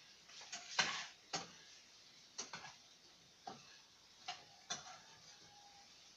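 Light clicks and knocks of a kitchen utensil against cookware on a gas stove, about a dozen at uneven spacing, the loudest about a second in.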